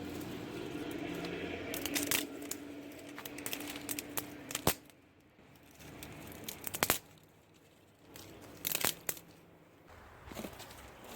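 Crinkling and tearing handling noises with scattered sharp clicks, over a steady low hum that fades about halfway through.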